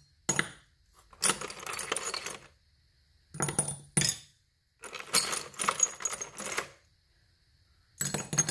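Small steel bolts clinking and rattling against one another as they are picked out of a container, in about five bursts of metallic clatter with short quiet gaps between them.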